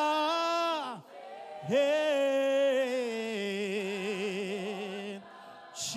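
Worship singing in Bemba: a held sung note fades out about a second in, then a long vibrato note steps down in pitch and ends near the end.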